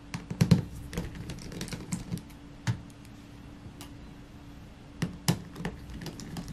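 Small sharp clicks and taps of a precision screwdriver working the tiny screws that hold a laptop's battery in place. A busy run of clicks at the start, a short lull, then more clicks near the end.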